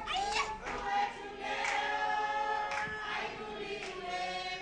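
A choir singing together in harmony, with long held notes.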